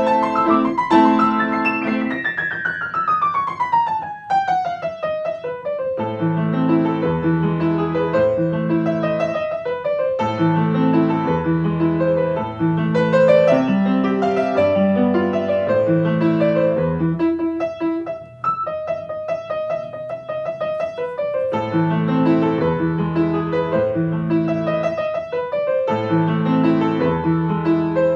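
Background piano music: a steady run of notes with a quick falling run near the start.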